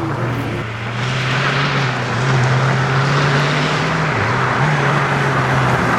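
Rally car engine at speed, getting louder about a second in as it approaches. The engine note dips briefly about four seconds in, then picks up again, as with a lift or gear change.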